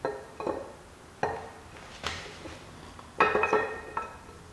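A 1.4 KFV engine's camshaft being slid by hand out of its cylinder head, its lobes and journals knocking against the head's bearing bores: about half a dozen separate metallic clinks with a short ring, a quick cluster of them about three seconds in.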